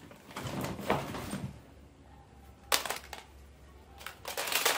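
Plastic toys being handled and knocked together: a rustling clatter in the first second and a half, a sharp knock a little under three seconds in, and a burst of clattering near the end.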